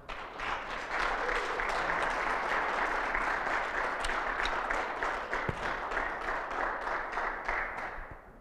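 A congregation applauding: a steady clatter of many hands clapping that dies away near the end.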